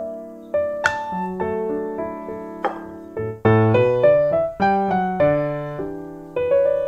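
Background piano music: a gentle melody of single notes ringing over held chords.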